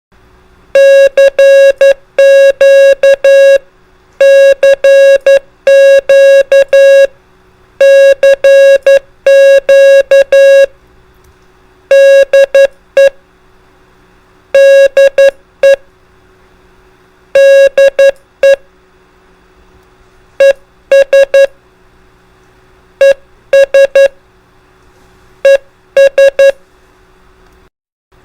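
Morse code (CW) tone keyed on and off in dits and dahs, a single steady beep spelling out characters in groups separated by short pauses.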